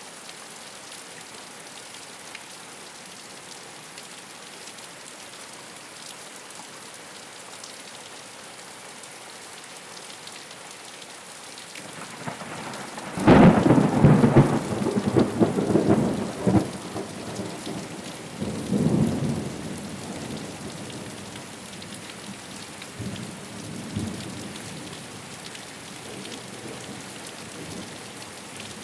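Steady rain falling on a rooftop. About halfway through, a loud clap of thunder breaks in and rumbles on for several seconds, swelling again before it fades back under the rain.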